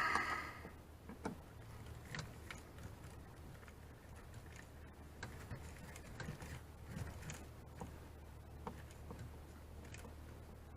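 Faint, irregular clicks and small scrapes of a hand screwdriver working screws out of an RV water pump's mounting, over a steady low hum.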